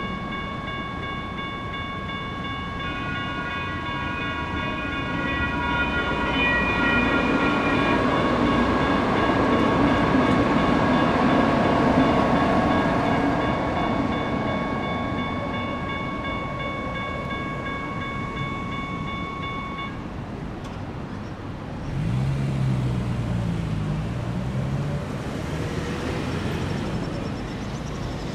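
Railroad crossing electronic bells ringing steadily while a light rail train passes, its wheel rumble swelling and then fading. The bells stop about two-thirds of the way through, which is when the gates start to rise. Near the end a low wavering hum starts.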